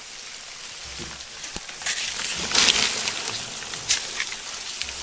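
Dry rustling and scratching from a box of live adult crickets being handled, with scattered light clicks and louder rustles about two, three and four seconds in.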